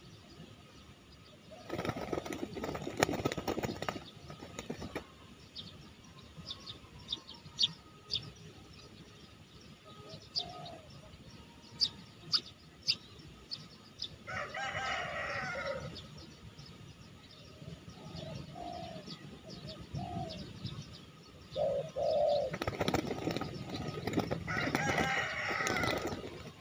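A large wild pigeon caught in snare nooses beats its wings against the ground in two long bouts of flapping, one about two seconds in and one near the end. Between them come short low coos from spotted doves, a louder call around the middle, and a few sharp clicks.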